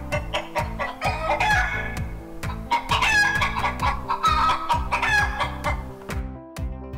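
Chicken clucking calls in several bursts, a sound effect laid over background electronic music with a steady beat; the calls stop about a second before the end.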